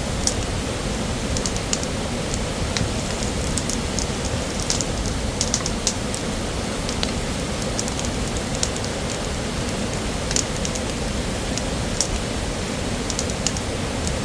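Steady rushing of a nearby waterfall, with scattered sharp light ticks over it.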